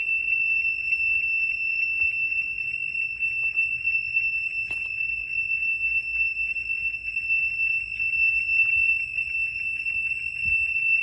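A loud, continuous high-pitched alarm tone held at one unchanging pitch without a break, over a faint low background rumble.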